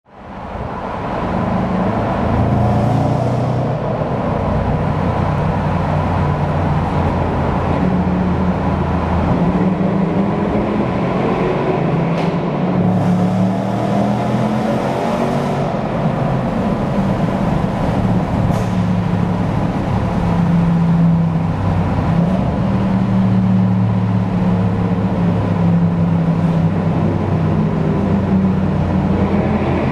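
V8 performance-car engines running through a road tunnel, heard from inside a car: a steady low drone whose pitch steps up and down several times as the revs change. The sound fades in over the first second.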